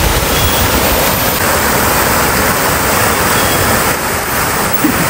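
Pool fountain jets pouring down and splashing into the pool: a steady, loud rush of falling water.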